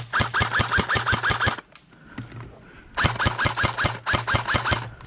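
Airsoft gun firing two rapid bursts, about seven shots a second with a steady motor hum under each burst, the second starting about three seconds in.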